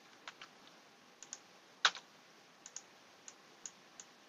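Computer keyboard typing: about ten separate keystrokes, one louder than the rest a little under two seconds in.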